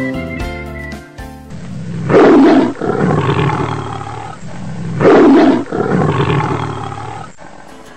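Tiger roaring twice, about three seconds apart; each loud roar trails off over a couple of seconds. Guitar music plays at the start and stops after about a second and a half.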